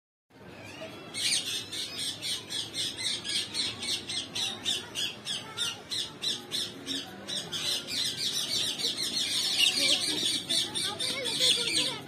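A dense chorus of birds calling from the trees, with rapid, high-pitched chirps and squawks, several a second, starting about a second in.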